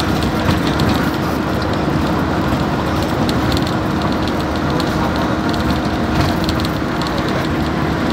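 Steady road and wind noise inside a moving vehicle at highway speed, with a constant hum running underneath.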